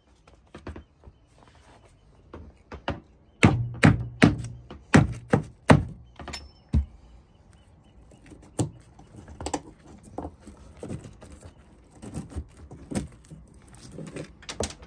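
A quick run of about seven sharp knocks on wood, then scattered lighter taps and clicks, as cut wooden pieces are worked loose by hand from between wooden frames.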